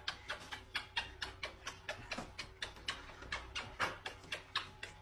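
A quick, fairly even run of light clicks or taps, about five or six a second, over a faint steady hum.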